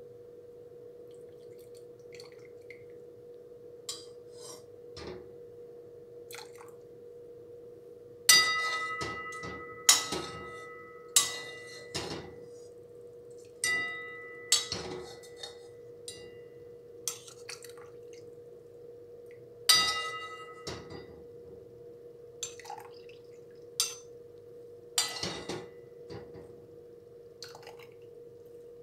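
Metal ladle clinking against a wok and a stainless steel strainer while ginger water is ladled through: about a dozen sharp metallic clinks, several ringing briefly, the loudest about eight, ten and twenty seconds in. A steady hum runs underneath.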